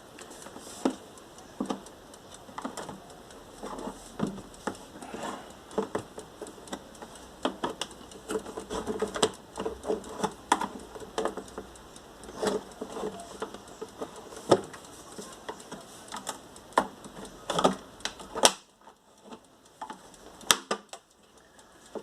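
Irregular plastic clicks and knocks as an air fryer's casing is handled and worked open, stopping a few seconds before the end.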